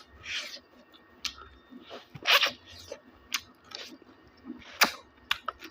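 A person chewing and eating, with scattered small clicks and a few louder short bursts, about two and a half and five seconds in.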